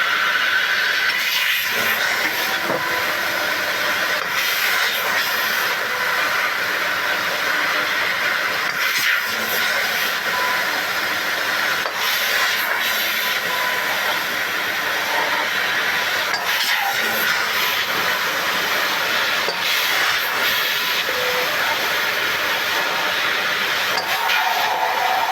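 A 2 kW fiber laser pipe-cutting machine running on 1.5 mm mild steel: a steady hiss with faint whining tones, broken by occasional sharp clicks.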